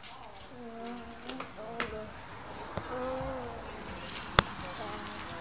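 Insects buzzing steadily in a high pitch, pulsing rapidly for about a second near the middle, with faint voices in the background and a sharp knock about four seconds in.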